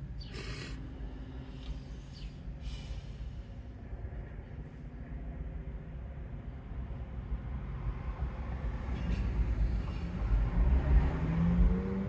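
Low, steady vehicle engine rumble that grows louder over the last few seconds, with a rising engine tone near the end. A few short clicks in the first three seconds.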